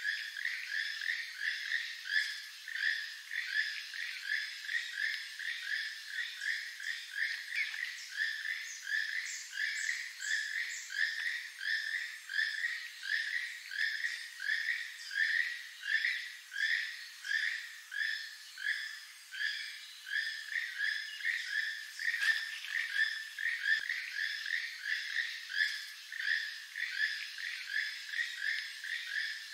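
Keel-billed toucan calling: a far-carrying, frog-like croak repeated steadily, about two to three croaks a second.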